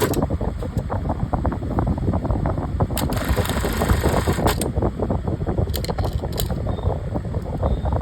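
Industrial single-needle lockstitch sewing machine running, a rapid mechanical clatter over a low rumble, with a few sharper clicks.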